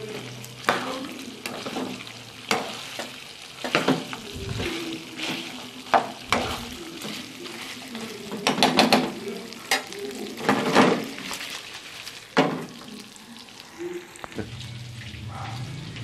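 Pork rib pieces sizzling in hot oil in a frying pan, stirred with a spatula that scrapes and knocks against the pan again and again. The water has cooked off, so the meat is now frying in oil and its own fat, browning.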